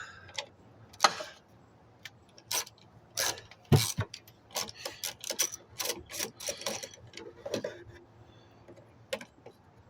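Irregular clicks, taps and short scrapes of hand tools and metal and plastic parts being handled while working on a Lawn-Boy two-stroke mower to get at its carburetor, the sharpest knock about four seconds in.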